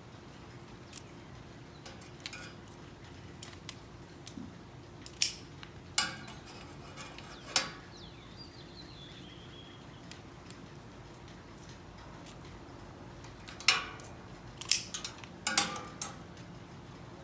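Sharp clicks and snips of hand basket-making work, scattered singly around the middle and in a quick cluster near the end.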